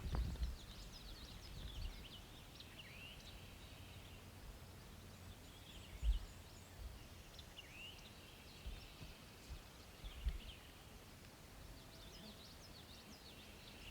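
Small songbirds chirping and calling on and off over quiet outdoor ambience, with a few brief low thumps: one at the start, one about six seconds in and one about ten seconds in.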